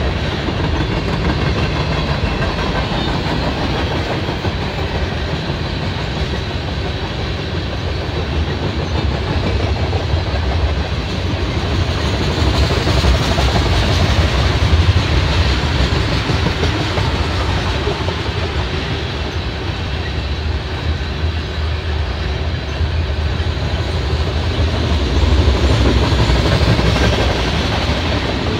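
Freight train of tank cars rolling past close by: a steady rumble of steel wheels on the rails. It swells about halfway through and again near the end.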